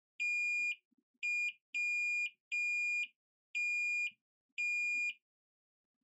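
Multimeter continuity beeper sounding six times in uneven short beeps as a probe is touched on and off the iPhone 6s logic board's PP1V8 line: the line still reads as shorted to ground.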